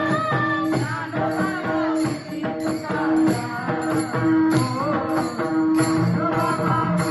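Marathi devotional bhajan: a voice singing a melody over a held drone note, with metal hand cymbals clashing on a steady beat of about two strokes a second.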